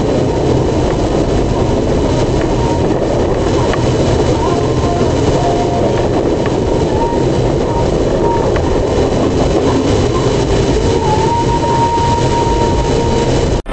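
Steady rumble of road and engine noise inside a moving car, picked up by the dashcam's microphone, with faint whistling tones coming and going.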